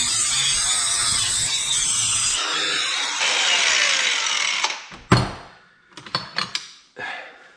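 Power drill running steadily while boring into a brass scrap fitting, then stopping about two-thirds of the way through, followed by a few clicks and knocks of metal parts being handled.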